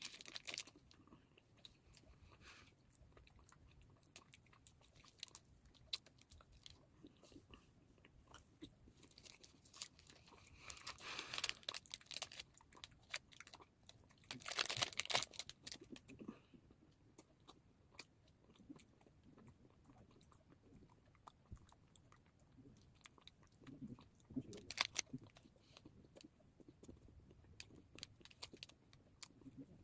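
Quiet close-up eating sounds from a Cadbury Wispa aerated milk chocolate bar: soft chewing and mouth clicks throughout, with three louder bursts of noise spread across the stretch.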